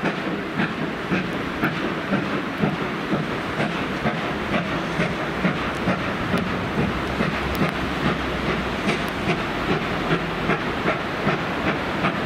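Steam-hauled train running, with a steady rhythmic clatter about twice a second over a continuous rushing noise.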